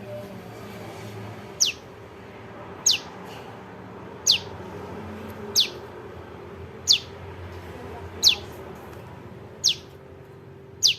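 Juvenile prenjak lumut calling: short, sharp chirps that sweep downward in pitch, one about every 1.3 seconds, eight in all, over a faint steady hum. This is the fledgling call used as a lure call.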